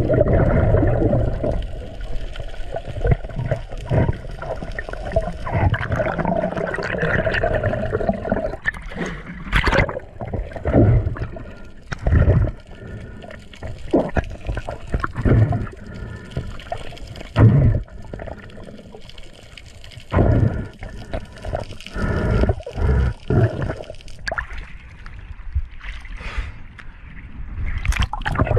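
Water sloshing and bubbling as heard through an underwater camera, broken by many irregular dull knocks.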